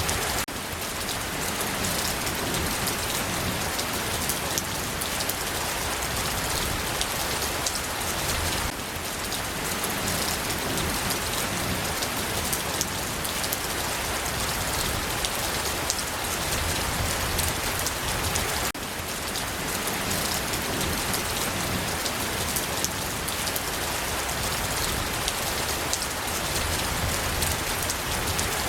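Steady rain falling, with many separate drop hits audible through a continuous hiss. The level dips briefly three times.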